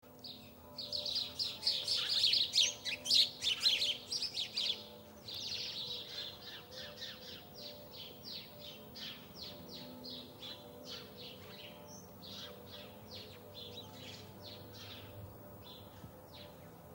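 Small birds chirping and twittering: a dense, loud burst of overlapping chirps for the first few seconds, then a run of single chirps, about two or three a second, growing fainter.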